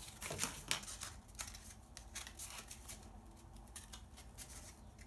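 Craft knife cutting and scraping in a slot in cardboard to widen it: a run of short scratchy strokes, loudest in the first second, then lighter scattered ticks.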